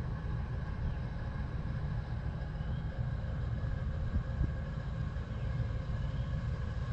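Outdoor ambience by a swamp: a steady low rumble with a faint, even background above it.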